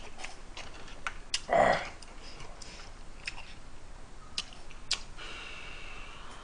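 Scattered light clicks of a metal ladle against the pot and the limpet shells in the ramen as broth is scooped up. A brief breathy vocal sound comes about a second and a half in.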